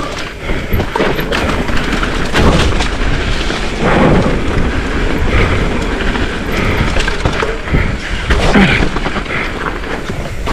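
Mountain bike running down a rough trail, heard from a rider-mounted camera: wind buffeting the microphone and repeated thuds and clatter as the bike hits roots and rocks.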